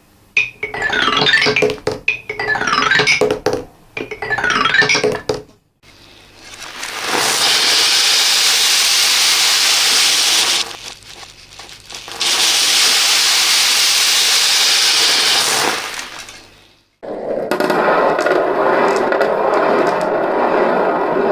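Small balls or beads clattering down a xylophone-style track in three quick runs of tinkling notes, then long, steady rushes of many small beads pouring, with a pause near the middle and a lower, heavier pour from about three quarters of the way in; the footage is played in reverse.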